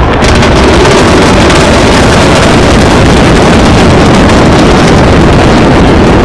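Jain Coral Cove apartment tower collapsing in a controlled implosion: a loud, continuous rumbling roar of falling concrete that overloads the microphone.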